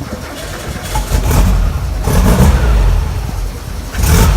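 Air-cooled Volkswagen engine on Weber IDF carburettors started from cold: it comes to life about a second in and runs unevenly, getting louder again near the end.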